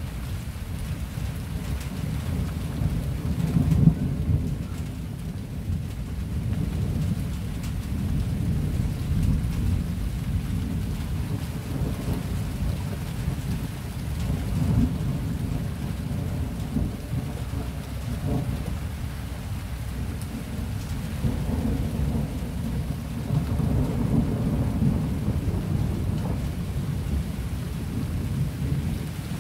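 Thunder rumbling low and continuously, swelling and fading in several long waves.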